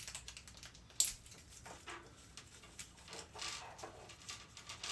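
Small packet of lock pins from a Kwikset rekey kit being opened and handled: irregular crinkling and light clicking, with one sharper click about a second in.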